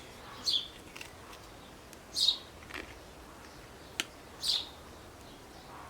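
A small bird chirping: three short, high calls about two seconds apart. A single sharp click comes about four seconds in.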